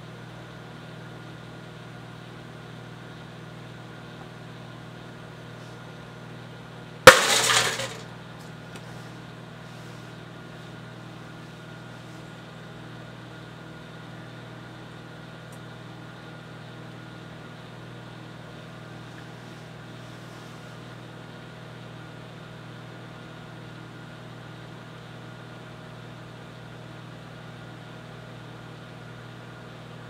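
A microwave oven running with a steady hum. About a quarter of the way through, a glass light bulb heated inside it bursts with one loud, sharp crack that dies away within about a second, followed by a few faint clinks of glass.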